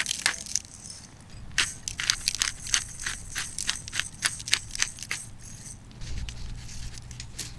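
Firewood burning in a campfire grill, crackling and popping in a run of sharp irregular snaps. A low steady hum comes in about six seconds in.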